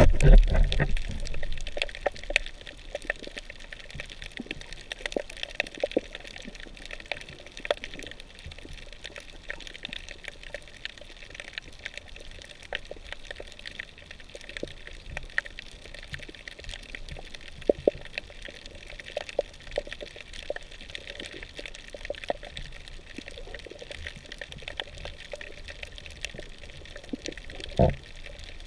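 Underwater sound over a coral reef picked up by a camera in its waterproof housing: a steady water hiss dotted with many scattered clicks and crackles, with a louder knock right at the start and another near the end.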